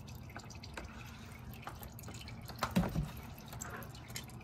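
Old automatic transmission fluid dripping from the open drain hole into a catch pan half full of fluid, a steady scatter of small drips. About three seconds in comes one louder short knock.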